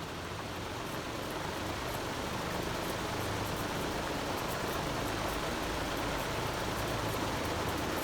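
Moss Caribbean Breeze ceiling fan running near high speed: a steady noise of moving air that grows slowly louder.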